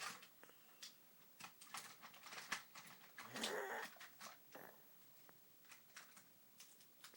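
A sleeping woman snoring: one rasping snore of about half a second about halfway through, with faint clicks and rustles around it.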